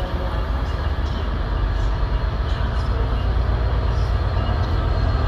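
Diesel-hauled train of Mk4 passenger coaches rolling past on the rails, with a steady heavy low rumble.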